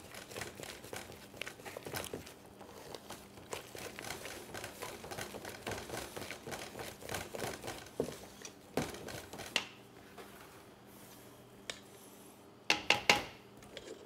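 Wooden spatula beating thick macaron almond paste in a stainless steel bowl, loosening it with meringue: quick, dense scraping and clicking strokes for about ten seconds, then quieter. Near the end comes a quick cluster of louder sharp knocks.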